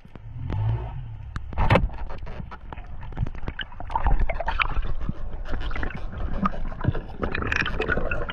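Underwater sound of a pole spear being worked into a reef hole, heard through the camera housing: many sharp clicks and knocks of the spear against coral and rock, with a heavy thump about two seconds in. A louder burst of clatter near the end comes as the spear strikes into the hole, stirring up silt.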